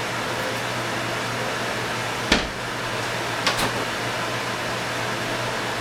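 Steady fan-like whooshing noise with a low hum, broken by two sharp knocks, about two and a half and three and a half seconds in, the first the louder.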